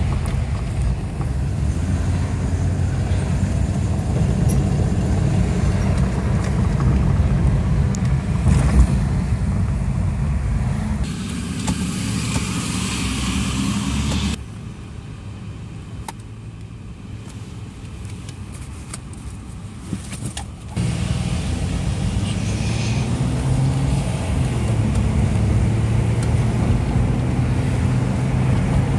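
Car engine and road rumble heard from inside the cabin while driving in slow traffic. About halfway through, a hiss joins for a few seconds, then the sound drops much quieter for several seconds before the rumble comes back.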